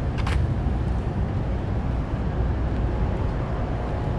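Steady low rumble of city street traffic, with a brief hiss a fraction of a second in.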